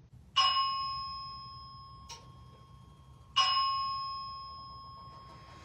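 Fire alarm system chime struck twice during an alarm test, about three seconds apart; each strike rings at a steady pitch and slowly fades. A short click falls between the two strikes.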